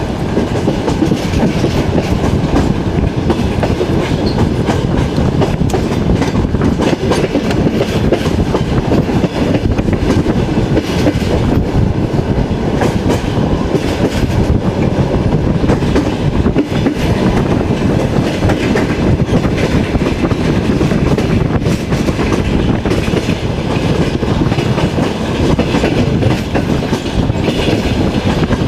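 Passenger train carriage running along the track, heard from inside the car: a steady rolling noise with the wheels clicking over the rails.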